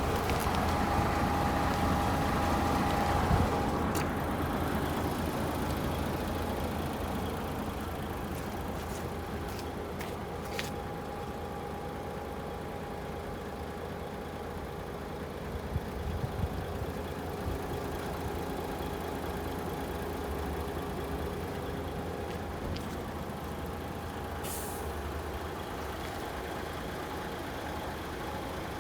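DAF XF106 tractor unit's Paccar 460 bhp Euro 6 six-cylinder diesel idling steadily, with a few clicks and a short hiss of released air near the end.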